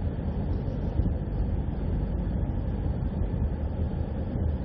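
Steady low rumble of a moving vehicle travelling along a road, with no distinct events.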